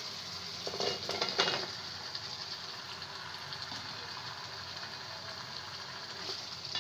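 Cut arum stolons (kochur lothi) tipped into a pan of hot cooked-down turmeric and chilli paste, with a short clatter about a second in, then a steady sizzle as a wooden spoon stirs them.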